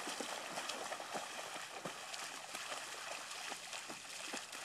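Children running through a shallow rainwater puddle, their feet splashing: a quick, irregular run of splashes over a steady watery hiss.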